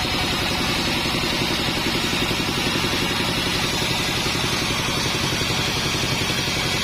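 Modified band sawmill running steadily: a constant machine drone with a fast low pulse under a hiss.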